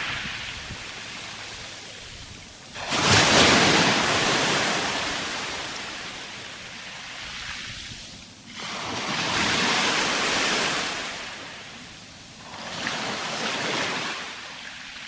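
Sea waves breaking and washing up the shore: three surges of rushing water, each rising fast and then fading as the wash draws back.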